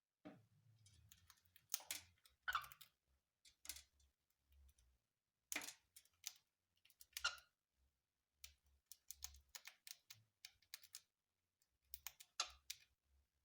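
Irregular light clicks and short scratchy taps, a few of them sharper and louder, with a faint low hum underneath.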